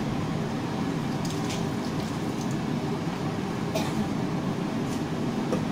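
Large wok of pork braising liquid at a hard, rolling boil on a gas burner, a steady bubbling rush, with a few short clicks scattered through it.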